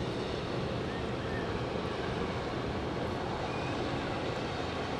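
Motor cruiser running at speed past the camera: a steady rush of engine and churning wake, mixed with wind on the microphone.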